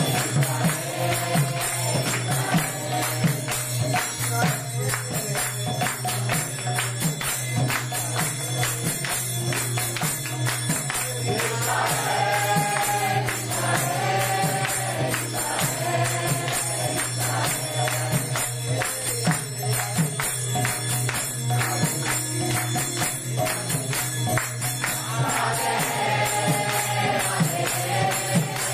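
Group devotional chanting (kirtan) with a rapid, steady jingling of small hand cymbals throughout. The singing swells loudest about twelve seconds in and again near the end.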